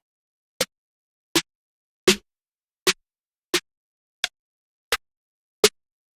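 Short percussive one-shot samples from a dark trap drum kit, played one after another: eight sharp hits about 0.7 s apart, with silence between them.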